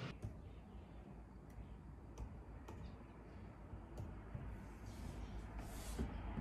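Scattered, faint clicks of a 2020 13-inch MacBook Pro's keyboard and trackpad being tapped, a few separate clicks over low room tone.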